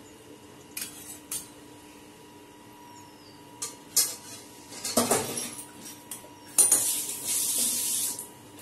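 Metal kitchen utensils clinking against steel cookware: a few sharp clinks spread through the first five seconds, then a hissing scrape lasting over a second near the end.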